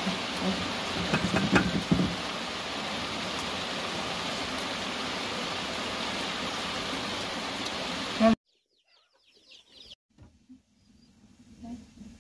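A steady, even rushing hiss that cuts off suddenly about eight seconds in. After it come a few faint, high, falling chirps.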